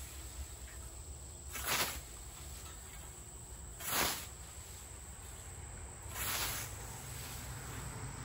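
European scythe blade swishing through tall grass in three mowing strokes, about two seconds apart, over a steady high insect buzz.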